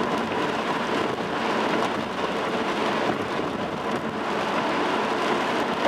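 Steady hiss of rain and tyres on a wet road from a car driving at highway speed in the rain.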